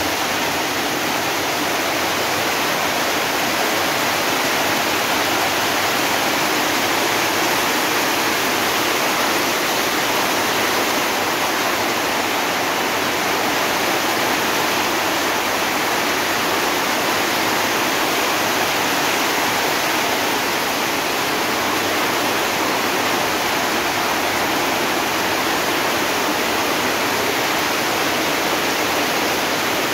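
Torrential rain falling steadily on wet ground and brick paving, a loud, even hiss with no let-up.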